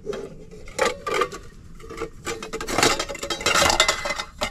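Cookware clattering and scraping as a pan is handled and pulled out from among other pots and utensils. The rattling is busiest about three seconds in.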